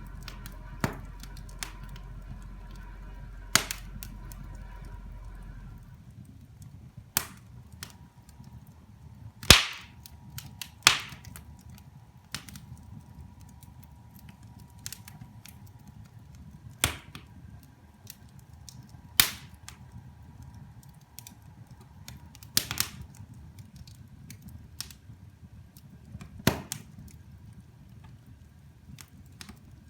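Wood fire in a fireplace crackling: sharp, irregular pops, some loud, over the low steady rustle of the flames. A low hum in the background stops about six seconds in.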